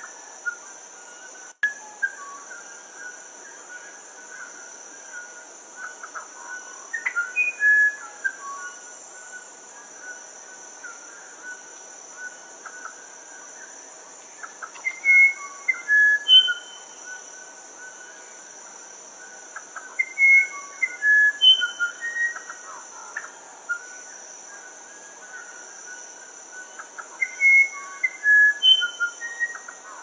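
Musician wren (uirapuru) singing: four phrases of pure, flute-like whistled notes jumping between pitches, mixed with soft gurgling chatter. A steady high insect drone runs underneath.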